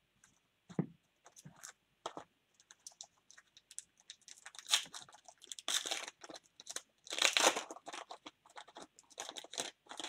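Foil wrappers of baseball card packs crinkling as the packs are handled, and one wrapper being torn open. Irregular crackles, loudest about halfway through.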